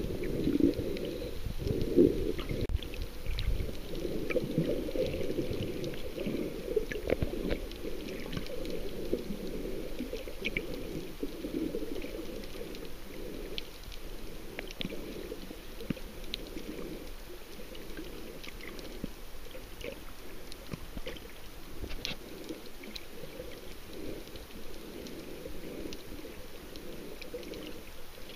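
Underwater sound of water moving around the camera: a muffled, churning low rumble with scattered faint clicks, a little louder in the first several seconds.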